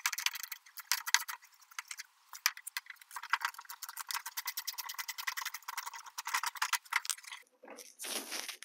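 Small quarter-inch ratchet driving a Phillips bit socket, its pawl clicking rapidly in quick bursts as it backs out a mud guard screw. The clicks stop near the end, followed by a brief scrape.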